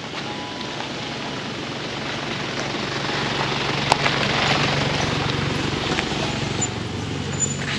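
Pickup truck engine running at low speed as the truck rolls past at close range, with its tyres crunching on the dirt road. The sound is loudest as it passes, about halfway through, then eases.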